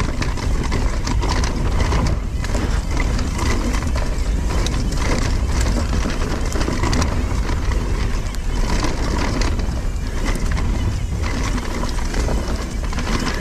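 Husqvarna Mountain Cross MC4 electric mountain bike ridden over leaf-covered dirt singletrack: tyres rolling and crunching through dry leaves, with frequent knocks and rattles from the bike over bumps, under a steady low rush of wind on the helmet-mounted camera's microphone.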